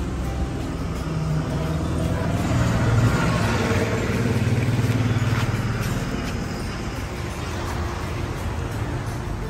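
A motor vehicle running, its steady low hum growing louder about three seconds in and fading again a few seconds later.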